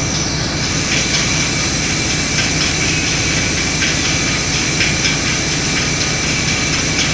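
Industrial machinery running steadily and loudly, with a faint constant high whine and a few light clicks: the pallet conveyor of a vacuum cooler drawing loaded pallets into the cooling chamber.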